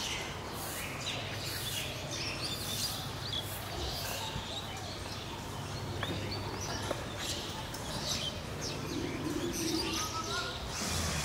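Small birds chirping and tweeting in short, repeated calls over a steady low hum.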